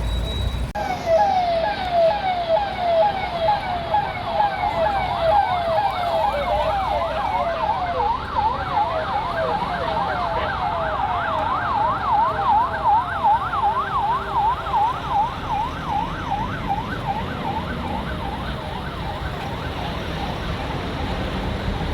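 Electronic vehicle siren in a fast yelp, about three to four pitch sweeps a second, starting about a second in and fading out well before the end, over steady low background rumble.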